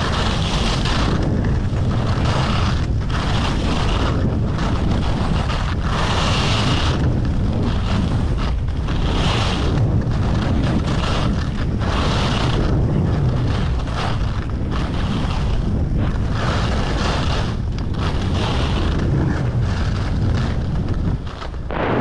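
Wind buffeting a GoPro's microphone during a fast ski descent, a steady low rumble, with the hiss of skis on groomed snow swelling at each turn, every second or two.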